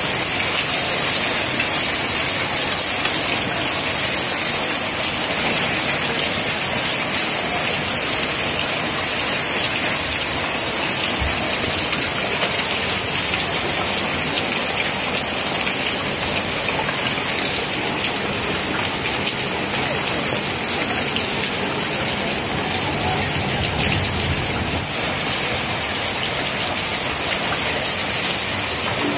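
Heavy rain mixed with small hailstones falling on concrete paving: a steady, dense hiss of drops striking the ground.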